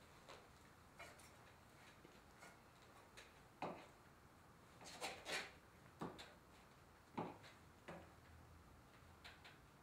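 About ten short clicks and knocks, scattered over near silence, from a fork, plate and ropes being handled at a table; the sharpest come a little past a third of the way in and about two-thirds in, with a quick cluster around the middle.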